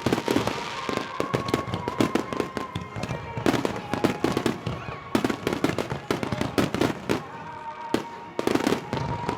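Fireworks display: a dense, rapid run of bangs and crackling shell bursts going on throughout, with a thin steady tone running underneath.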